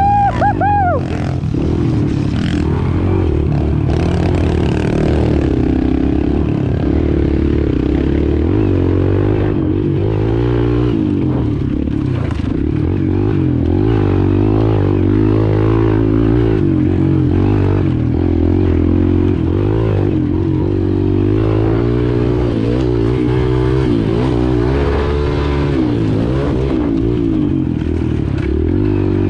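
Kawasaki KLX pit bike's small four-stroke single-cylinder engine running on the trail, heard from on the bike, its pitch rising and falling over and over as the throttle is opened and closed through the turns. A short high-pitched rise and fall sounds right at the start.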